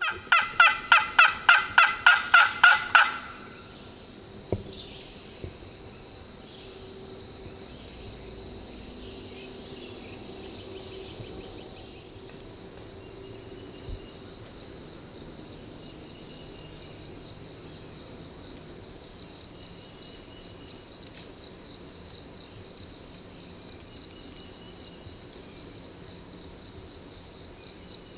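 Wild turkey gobbling: a loud, rapid rattling call lasting about three seconds at the start. Insects then buzz steadily in the background, with a pulsing trill near the end.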